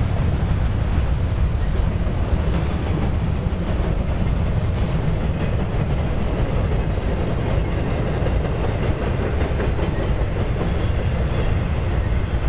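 Autorack freight cars rolling past: a steady, heavy rumble of steel wheels on rail.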